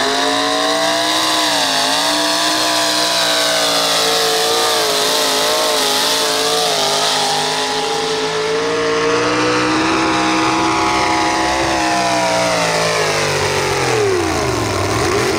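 Pulling pickup truck's engine running flat out at high revs under heavy load as it drags the weight sled, its pitch wavering and creeping upward. Near the end the revs fall away as the driver comes off the throttle at the end of the pull.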